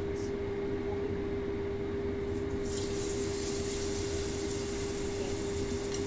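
A steady machine-like hum on one tone with an even hiss under it; the hiss turns brighter and higher about three seconds in.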